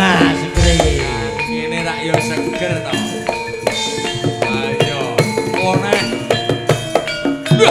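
Javanese gamelan music accompanying tayub dance: metallophones and gongs ring out steady notes over kendang hand drums struck in a busy rhythm.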